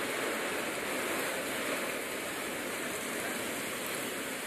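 Strong wind rushing through trees, a steady hiss of noise.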